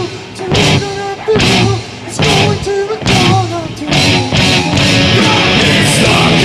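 Rock music with guitar and a steady drum beat, about one hit every 0.8 seconds.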